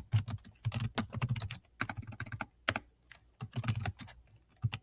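Typing on a Chromebook keyboard: an irregular run of sharp key clicks.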